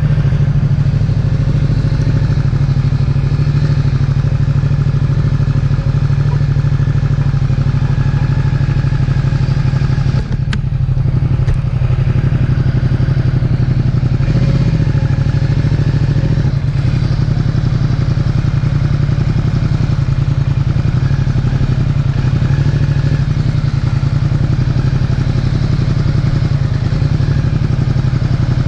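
Ducati XDiavel S's 1262 cc Testastretta V-twin engine running steadily under way, with one brief dip in the engine note about ten seconds in.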